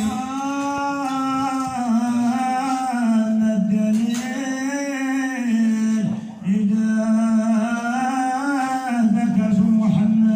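A man's voice singing a Moroccan Sufi madih, a devotional praise song, in long drawn-out notes that waver up and down in pitch, with a short break for breath about six seconds in.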